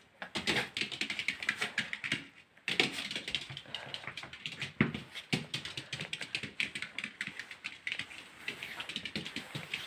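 Excited dog greeting its owner: rapid clicking and scrabbling of claws on a hard floor, pausing briefly about two and a half seconds in, with a few short whimpers among the clicks.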